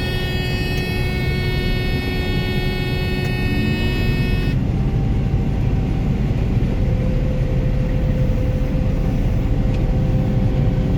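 Heavy farm machine's diesel engine running steadily, heard from inside the cab. A high, buzzing tone rides over it and cuts off suddenly about four and a half seconds in.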